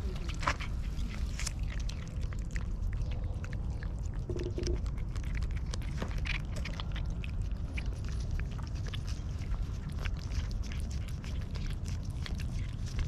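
Two cats licking a squeeze tube of lickable paste treat: a quick, irregular run of small wet smacking clicks from their tongues and mouths, over a steady low rumble.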